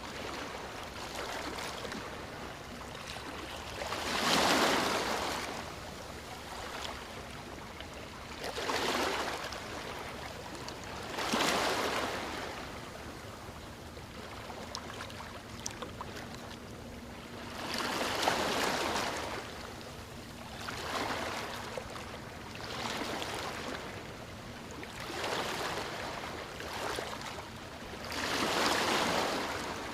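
Waves breaking on a beach and washing up the shore, each one a swelling hiss that rises and fades, coming every two to five seconds, with the strongest surges about four, eleven and twenty-eight seconds in.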